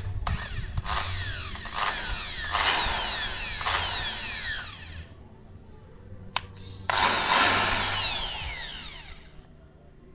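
Bosch GSB 550 impact drill run with no load in several trigger pulls, likely in reverse rotation. Each time its motor whine falls in pitch as it coasts down. There is a sharp click about six seconds in, then one longer run about seven seconds in that rises in pitch and then winds down.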